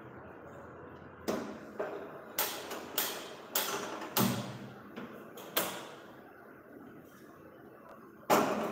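Kitchen utensils and vessels being handled and set down at a gas stove: a quick run of about eight clinks and knocks, each with a short ring, then one louder clatter near the end.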